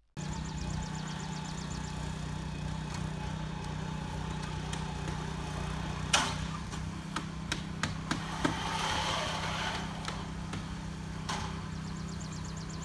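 Roofing job-site sounds: a steady engine hum, with sharp knocks and clicks from the crew working on the roof, the loudest knock about six seconds in.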